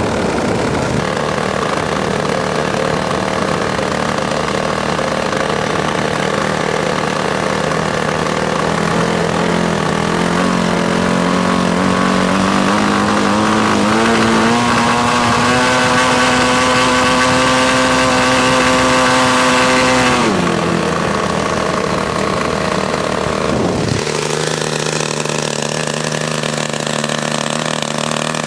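DLA 56 single-cylinder two-stroke gasoline model-aircraft engine running on a test stand, its pitch climbing steadily as it is opened up, held at high revs for several seconds, then throttled back about twenty seconds in and settling to a lower, steady idle.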